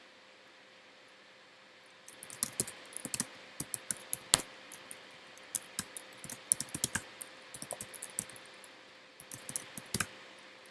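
Typing on a computer keyboard: quick, irregular runs of keystrokes starting about two seconds in, with a short pause partway through.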